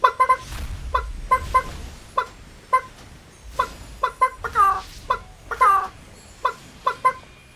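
A chicken clucking: a run of short, sharp clucks broken by a few longer, falling squawks, in the pattern of a cackle.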